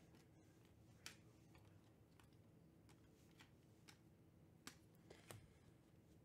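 Near silence: a faint low hum with a few soft, scattered clicks of trading cards being handled and flipped.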